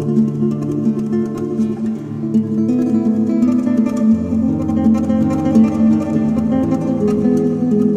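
Spanish guitar music, plucked and strummed in a flamenco style over a steady bass line that shifts about four seconds in.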